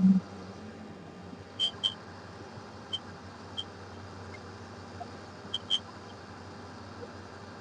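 Ultrasonic fuel-injector cleaner running with a faint steady hum during its cleaning cycle. A brief low thud comes right at the start, and a scattering of short, high chirps follows, several in close pairs.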